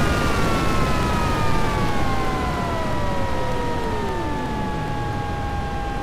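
Jet engine running, several high whining tones slowly falling in pitch over a steady rush of noise, one tone sliding down steeply about four seconds in while the overall level eases off slightly.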